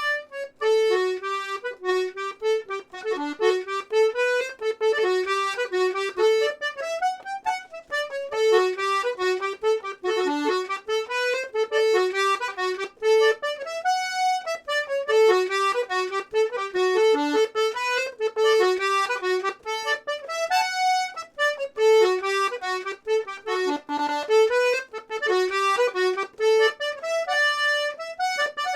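Serenellini C#/D two-row button accordion with three sets of reeds (LMM) playing a lively tune, the melody moving quickly note to note.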